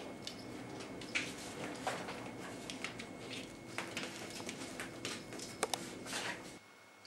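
A cat scrabbling and pouncing on a fabric slipper on a tiled floor: scattered light scuffs and clicks of paws and claws, a few sharper clicks near the end, over a faint steady hum.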